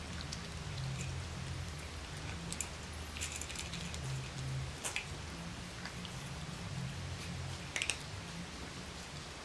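Boston Terrier puppies crunching dry kibble from a metal pan: scattered small clicks and crackles of chewing and of kibble knocking on the pan.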